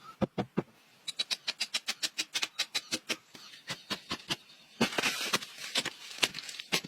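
A rapid series of sharp knocks or taps, about five a second, with a few heavier thuds at the start and a brief rustling hiss about five seconds in.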